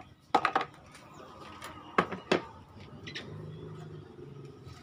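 Several sharp knocks and clicks of handling, about half a second in and again twice around two seconds in, as the camera is repositioned; a faint steady low hum starts a little past three seconds.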